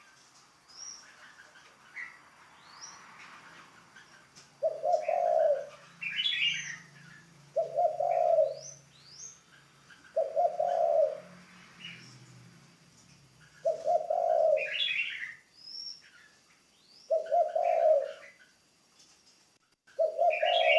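Spotted dove kept as a decoy, cooing in short phrases of about a second, six times, a few seconds apart. Fainter chirps and short rising whistles of small birds fill the gaps.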